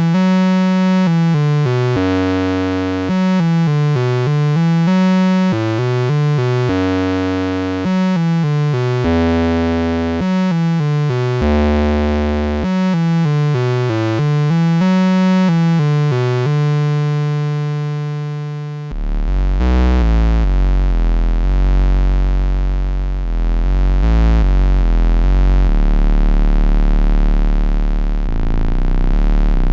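Moog Spectravox semi-modular synthesizer playing a single-voice line of notes with bright, rich harmonics, the pitch sliding between some of them. About two-thirds of the way through, the sound changes to a deep, heavy bass drone with shifting tone.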